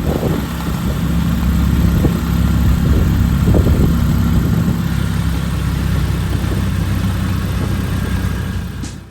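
A motor vehicle's engine running loudly and steadily, with a low hum and rushing noise; it cuts in and cuts out suddenly.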